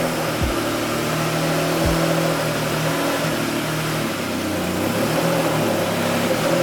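Car engine running steadily, heard from inside the cabin on the move, with a few brief low changes in pitch early on. The car has an exhaust manifold leak that lets fumes into the cabin.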